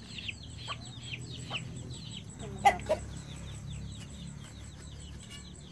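Young chicks peeping over and over in short, falling high chirps, several a second. Two sharp knocks come about two and a half seconds in.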